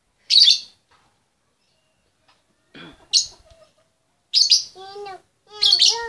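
Female lovebird in a cage giving about four short, loud, shrill calls a second or so apart, the contact call a hen uses to call the male. Lower, wavering sounds come between the calls in the second half.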